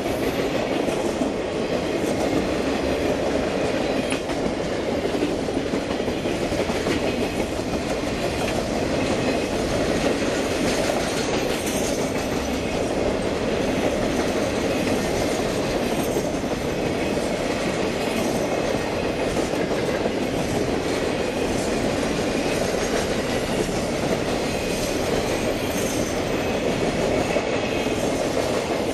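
A Triple Crown RoadRailer train, highway trailers riding on rail bogies, rolling past with a steady rumble and clatter of steel wheels on the rails.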